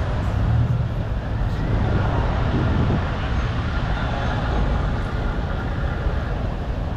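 Steady city traffic noise: cars and buses running along the road, a constant low rumble.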